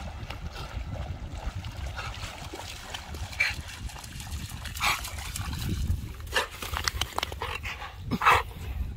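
American bulldog splashing through shallow river water and giving several short, excited whines and yips, the loudest near the end. A low rumble of wind on the microphone runs underneath.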